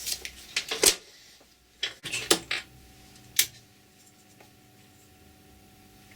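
Small hard objects being handled: a quick run of sharp clicks and light metallic clinks over the first three and a half seconds or so, then only faint background.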